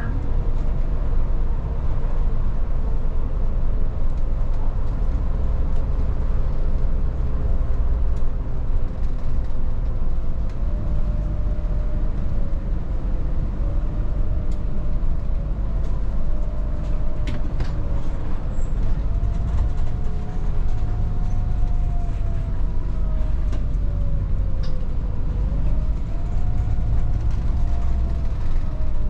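Volvo 8900 bus heard from inside while driving: a steady deep diesel and drivetrain rumble with a faint whine that rises and falls as the bus speeds up and slows down.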